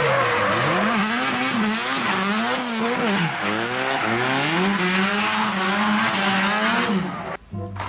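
Drift car's engine revving up and down again and again over the screech of tyres sliding sideways through corners; the sound cuts off near the end.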